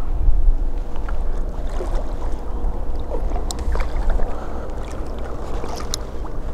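Water splashing as a hooked carp thrashes at the surface close to a wading angler, several short splashes scattered through, over a steady low rumble of wind on the microphone.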